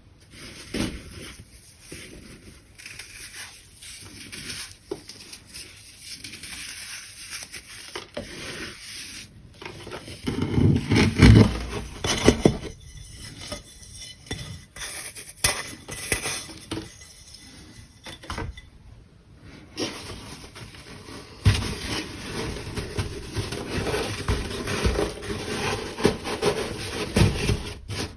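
Crunchy baking soda being crushed: an irregular run of crunches, crackles and crumbling, loudest a third of the way in and again over the last several seconds.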